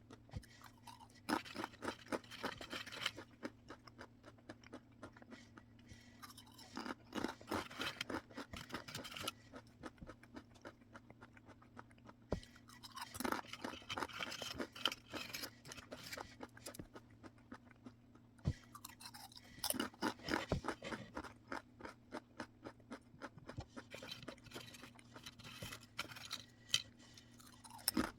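Close-up crunching and chewing of a crisp snack, in about five bouts of crackly crunches with short quiet pauses between them.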